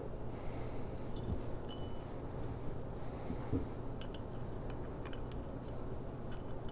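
Breathing through the nose close to the microphone, two exhales, over a low steady hum; later a few faint light clicks as small carburetor parts and a screwdriver are handled.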